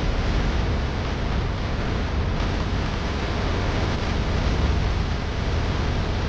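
Steady, loud rushing noise with a deep rumble underneath, a dense sound-design bed with no clear tune or beat.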